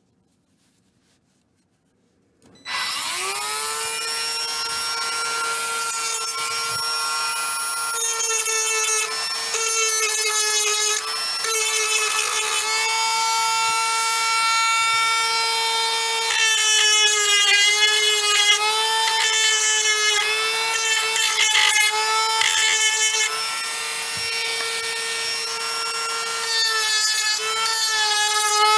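Dremel rotary tool switched on about two and a half seconds in, quickly spinning up to a steady high whine. A rougher grinding sound comes and goes over it as the bit cuts into a light blue plastic form.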